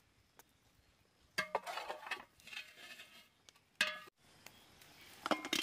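A metal ladle clinking and scraping against a large aluminium cooking pot and plate. The clattering starts about a second and a half in, a sharp ringing clink comes about four seconds in, and another hard clink comes near the end.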